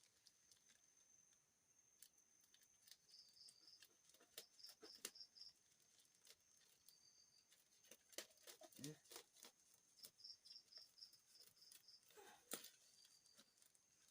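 Near silence: faint scattered clicks and light handling noises, a little louder about 8 seconds in and again near the end, with an insect chirping in short groups of high pulses every few seconds.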